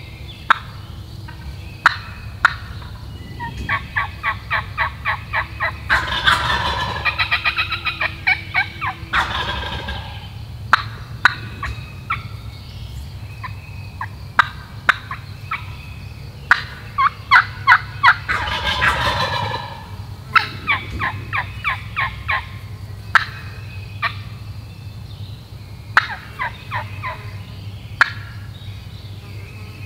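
Wild turkey gobbler gobbling twice, about six seconds in and again near eighteen seconds. Each gobble comes after a run of evenly spaced hen yelps, and sharp clucks and cutting notes are scattered throughout.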